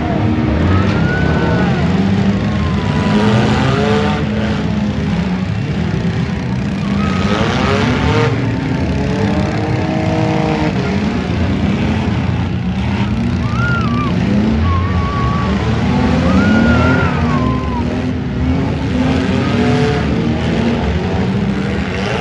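Demolition-derby cars' V8 engines revving hard, several at once, their pitch rising and falling, with short high squeals now and then.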